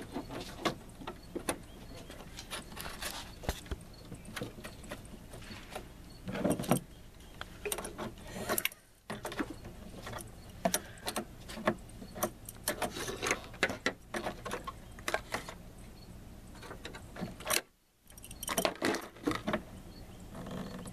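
Irregular metallic clicks and clinks of a wrench and a battery cable terminal being fitted and tightened onto a car battery's positive post.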